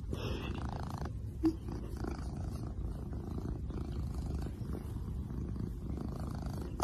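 Scottish Fold cat purring steadily while being stroked on the head, with one brief, louder short sound about a second and a half in.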